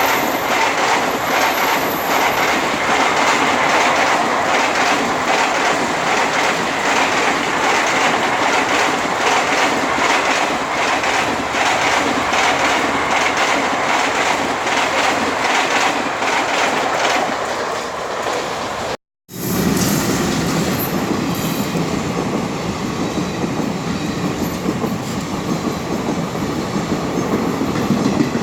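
Indian train running on the track, with a rhythmic clatter of wheels over rail joints. The sound cuts out for a moment about two-thirds of the way through and resumes with a smoother rumble.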